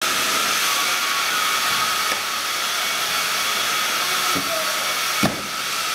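Steady rushing, fan-like noise with a faint high whine running through it, and a single click about five seconds in.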